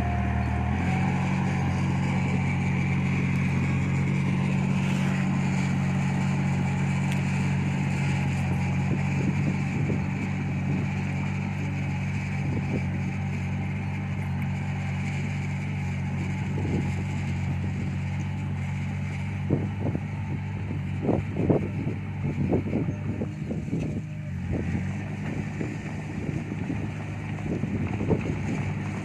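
Diesel engine of a D20 bulldozer running steadily, with several sharp clanks in the last third.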